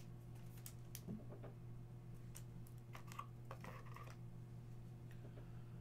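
Faint, scattered clicks and taps of trading cards being handled and flipped through by hand, over a steady low hum.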